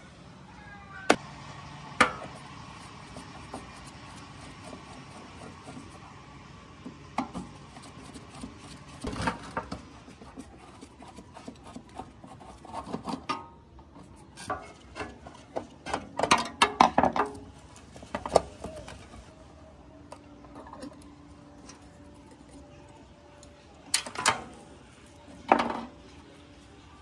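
Scattered clinks, taps and knocks of rusty sheet-metal parts and small metal fittings being handled on a workbench. Two sharp clicks come early, a busy cluster falls around the middle, and two more knocks come near the end.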